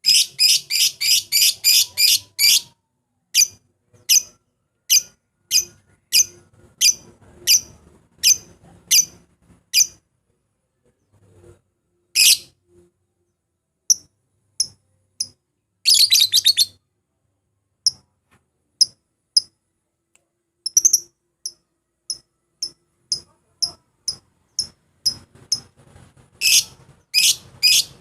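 Lovebird calling with sharp, high-pitched chirps: fast runs of chirps at the start, twice around the middle and again near the end, with single chirps about two a second in between.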